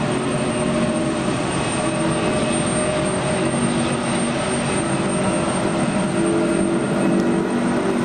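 Boeing 787-8 Dreamliner's Rolls-Royce Trent 1000 turbofan engines at take-off power during the take-off roll: a steady jet roar with several humming tones held through it.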